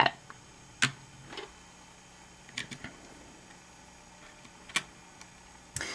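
Plastic Gigaminx puzzle pieces clicking as they are pressed into place in the mechanism: a few scattered sharp clicks, one about a second in, a small cluster a little later and another sharp one near the end.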